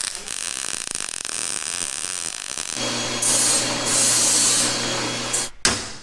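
MIG welder crackling while laying a weld on steel. Then a drill press motor hums steadily while its bit cuts through steel flat bar in two spells. Near the end comes a single sharp hammer strike on steel.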